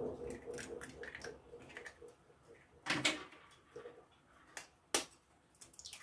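Raw eggs cracked one at a time against the rim of a ceramic bowl: a sharp crack about three seconds in and another near five seconds, with small clicks of the shells being handled between them.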